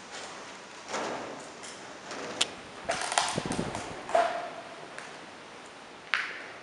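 Footsteps crunching and scuffing over rubble and litter on a concrete floor: irregular crunches and clicks, with a short squeak at about 4 s.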